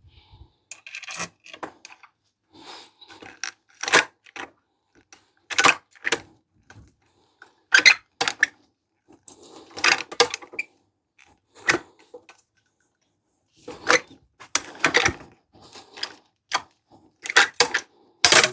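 Old hand rivet tool setting a blind rivet: a string of sharp metal clicks and clacks as the handles are squeezed and released again and again, irregularly spaced, the loudest near the end.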